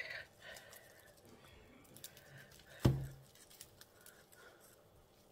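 Fingers pressing and working loose potting soil in a plant pot: soft crumbly rustling and scratching with small ticks, and a single sharper thump about three seconds in.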